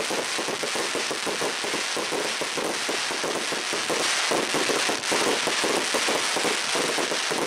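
Lesli 'Crackling War' 108-shot 30 mm fireworks cake, its gold crackling stars bursting overhead: a dense, unbroken crackle of countless small pops at a steady level.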